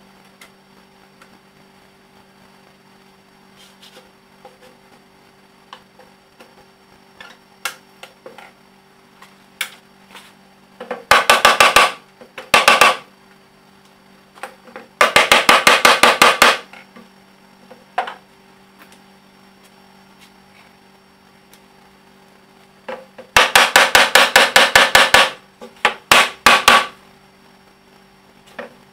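Rubber mallet beating on a round wooden tabletop in quick flurries of blows, about seven a second, knocking the top down onto its jointed leg base. There are four bursts, two near the middle and two near the end, after scattered light clicks in the first ten seconds.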